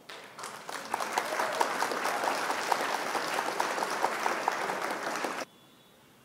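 Canned applause sound effect: a crowd clapping. It builds over the first second and stops abruptly about five and a half seconds in.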